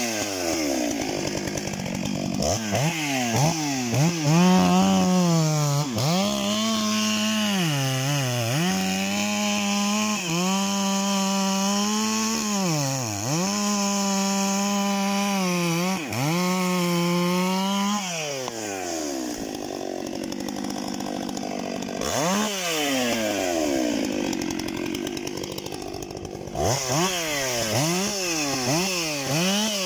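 Stihl MS 661 C two-stroke chainsaw with a 63 cm bar cutting through a walnut trunk at full throttle, the engine note held steady and dipping briefly every couple of seconds. About two-thirds of the way in the cutting stops and the saw is revved up and down in quick blips.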